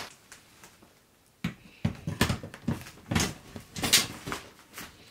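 A softbox being fitted onto the Bowens mount of a Godox SL60W LED video light: a string of irregular knocks, clicks and rattles that starts about a second and a half in, loudest near the end.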